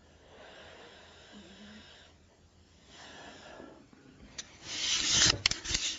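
The chanter's faint breathing between chanted phrases, then a louder rushing breath about four and a half seconds in, followed by several sharp clicks.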